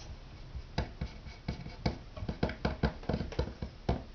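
A quick, irregular run of light clicks and taps, about four a second, starting about a second in.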